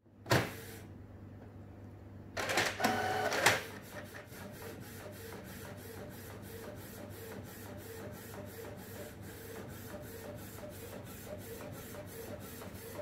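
Canon inkjet all-in-one printer at work: a click, then a louder whir of the sheet being fed about two to three seconds in, followed by the print head shuttling across the page in a steady rhythm of about three passes a second.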